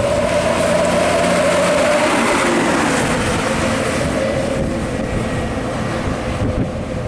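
Mitsubishi Fuso Fighter 220PS dump truck driving past and away, its engine note dropping a little in pitch over the first few seconds as it goes by, over loud tyre and road noise.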